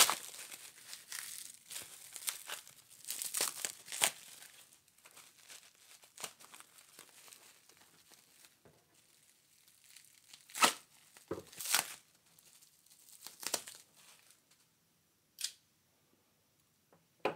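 Taped bubble wrap being torn open and crinkled by hand to free a bayonet: dense rustling and tearing for the first few seconds, then a few short sharp rips, and quiet near the end.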